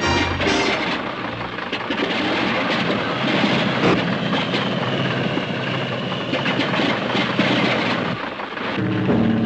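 A loud, steady rushing roar of noise takes over as music fades about a second in, with a faint high whine in the middle; music with drums comes back in near the end.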